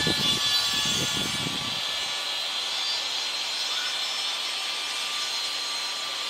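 Wind buffeting the microphone in low gusts for the first couple of seconds, then settling into a steady airy hiss of wind.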